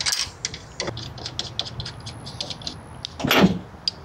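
Light clicking and clinking of metal hardware being handled and worked, irregular small ticks, with a louder scrape or rustle a little over three seconds in.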